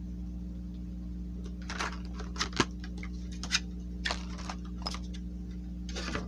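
A trading-card theme deck box and its contents being unpacked by hand: a scatter of light clicks and rustles, with one sharper click about two and a half seconds in, over a steady low hum.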